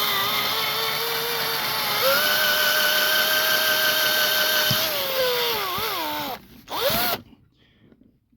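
Small rotary tool running with a grinding bit, a steady whine that steps up in speed about two seconds in. It winds down falling in pitch around five seconds in, spins up briefly once more, then stops.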